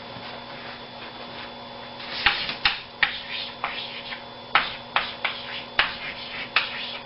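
Chalk writing on a blackboard: a run of sharp taps and short scratchy strokes, starting about two seconds in, as letters are written.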